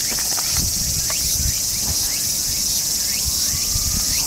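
Steady high-pitched chorus of insects, with short rising chirps and a few soft low knocks scattered over it.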